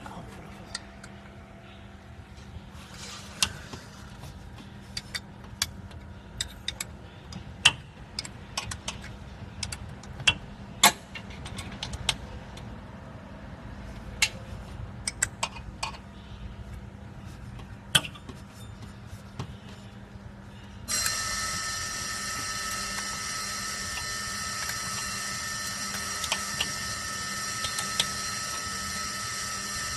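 Metal hand tools clinking, tapping and clicking irregularly against the machine's metal parts as screws are worked to take down the bearing, over a low steady hum. About two-thirds of the way in, a louder steady whirring noise with a high whine starts and keeps going.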